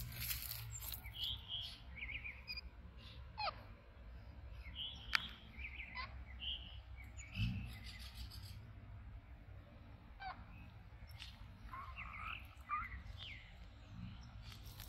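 Scattered short, high chirps and twitters, with a few sharp clicks among them.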